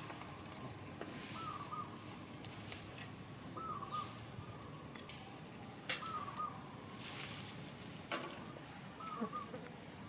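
A bird calling repeatedly: a short call, repeated four times about two and a half seconds apart, over a steady background hiss, with two sharp clicks in between.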